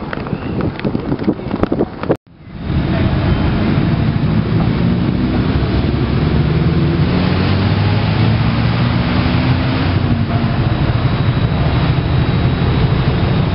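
Wind buffeting the microphone for about two seconds, cut off abruptly. After that, a steady low hum of car and motorcycle engines as a slow convoy of vehicles passes close by.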